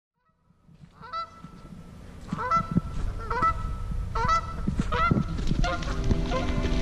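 Canada geese honking in repeated bouts of a few calls each, fading in from silence over the first second.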